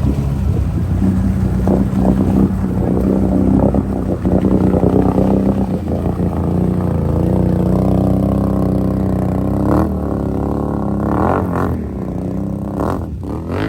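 Can-Am Outlander ATV engine running hard, held steady at first, then revved up and down several times from about ten seconds in.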